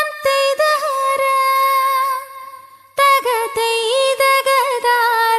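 A high voice singing a melody alone in two long phrases, the second starting about three seconds in.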